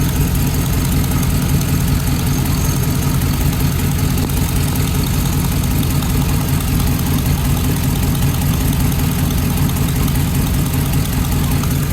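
Hummer engine idling with a fast, steady puffing tick from a loose spark plug, which lets combustion gas escape past its threads and sounds like an exhaust leak.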